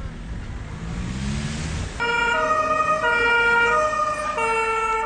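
Fire engine's two-tone siren, alternating between a high and a low note about every 0.7 seconds. It starts abruptly about two seconds in, after low rumbling street noise.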